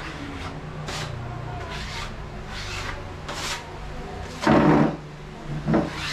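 Putty knife scraping skim-coat putty across a painted wall in short repeated strokes, about one or two a second. Two much louder handling bumps come near the end, about a second apart.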